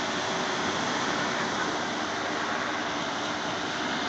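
Steady wash of Baltic Sea surf breaking on a sandy beach, an even hiss with no separate events.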